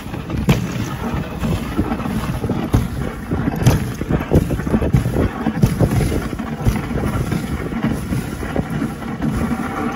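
Dog sled running over a packed snow trail: a steady low rumble from the runners on the snow, with frequent knocks and jolts, and wind buffeting the microphone.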